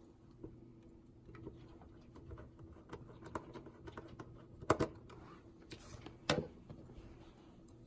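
Scattered light clicks and taps of small hard parts of a POS terminal being handled, with two louder sharp clacks a little past the middle and about a second and a half later.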